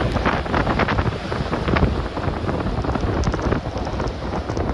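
Gusty wind on the microphone over rough, storm-driven surf breaking and churning against a seawall.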